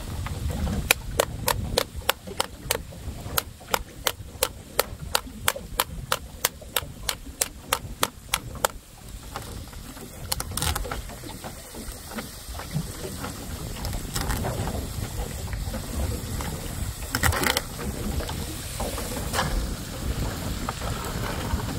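Kitchen knife chopping against a wooden cutting board, quick even strokes about four a second for some eight seconds, followed by a few separate knocks.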